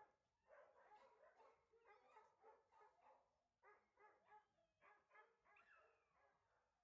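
A dog barking faintly in a quick run of short barks, about two or three a second, tailing off near the end.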